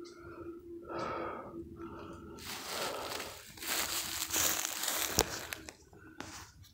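Footsteps crunching through dry leaf litter and twigs, an irregular run of crackling steps that is busiest in the middle, with a sharp snap about five seconds in.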